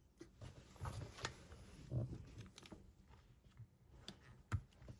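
Faint, scattered clicks and light knocks of a small die-cast toy car being handled, the sharpest knock about four and a half seconds in.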